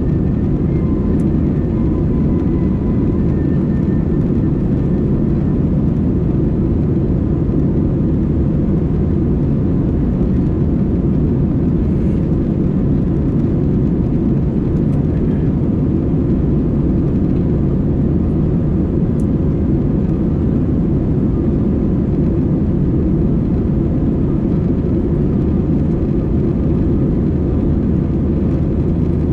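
Steady cabin noise inside an Airbus A320-200 airliner: an even, deep rumble of engine and airflow that does not change in level, from its IAE V2500 turbofans.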